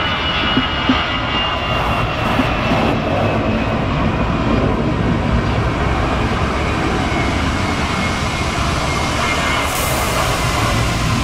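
Jet engines of taxiing airliners: a steady, loud jet noise, with a thin high turbine whine that slowly drops in pitch over the first few seconds.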